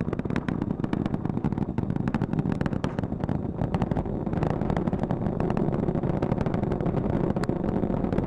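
Rocket exhaust from the Space Launch System's four RS-25 core-stage engines and two solid rocket boosters, heard from the ground during ascent: a steady, deep rumble laced with dense crackling.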